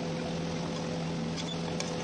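Steady motor hum with an even hiss underneath, with two faint light ticks from a metal spatula against the pan near the end.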